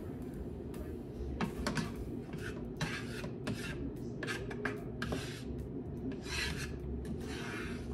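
A plastic spatula scraping and rubbing across the bottom of a frying pan, spreading melted butter, in a string of short irregular strokes.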